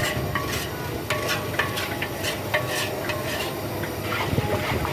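Pad thai stir-frying: a metal spatula scrapes and clanks irregularly against the pan, several strokes a second, over the steady sizzle of the frying.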